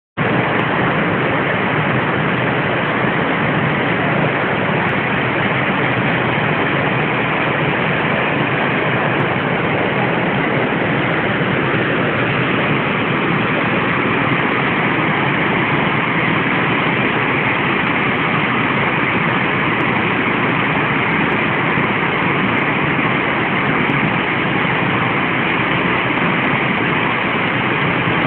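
Waterfall rushing: a loud, steady roar of falling water that does not change.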